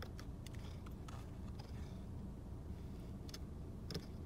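Light clicks and crinkles of a paperboard nugget box being handled by small hands, over a steady low rumble, with a sharper click about four seconds in.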